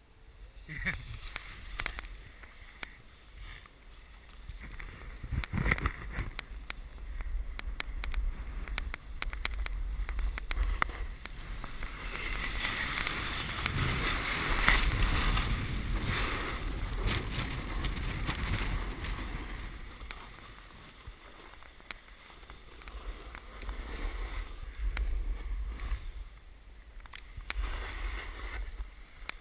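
Snowboard sliding and scraping over packed snow on a downhill run, with wind rumbling on the microphone; the rush swells and is loudest in the middle, easing off toward the end.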